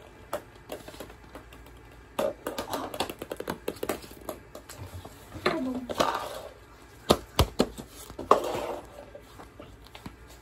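Small balls bouncing and clattering on a hard wooden floor, in quick runs of sharp ticks, with scattered thuds of footsteps and one heavy low thud about seven seconds in.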